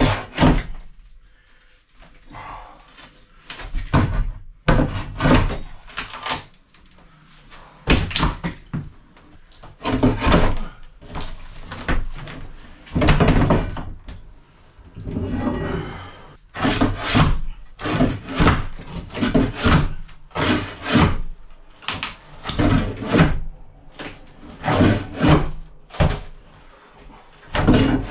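Irregular knocks and thuds, about one or two a second, some louder and sharper than others, from hands-on building work.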